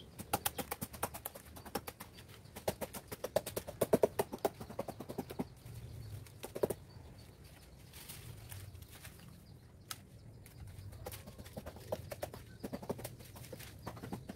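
Coarse sugar palm (aren) ijuk fibre crackling and snapping as it is worked off the palm trunk by hand: runs of rapid sharp clicks in the first five seconds and again near the end, with a quieter stretch between.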